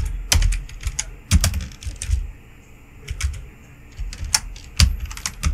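Typing on a computer keyboard: irregular key clicks in short runs, with a few louder strokes.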